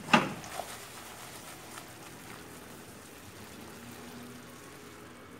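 A sharp clank from the wok as it is taken by the handle, then the chili-ketchup sauce with abalone strips bubbling softly in the pan.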